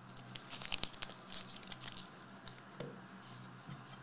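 Trading-card packs and boxes being handled and opened on a table: light crinkles of foil wrapper and packaging with scattered small clicks, most of them in the first half.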